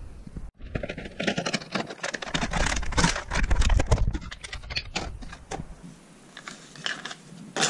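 Rustling and knocking of close handling: the cloth and the TV's plastic back being moved about. Near the end come lighter clicks as plastic pry tools clatter against each other when they are picked up.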